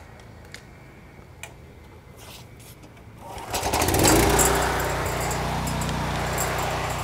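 A pressure washer's small gasoline engine starting about three and a half seconds in, catching and settling into a steady run, after a few light clicks of handling.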